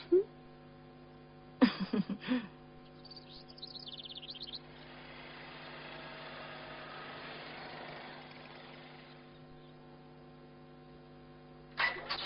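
A small bird twittering in a quick series of high chirps about three to four seconds in, over a steady electrical hum. A brief loud voice-like sound comes just before it, and a soft rushing noise swells and fades after it.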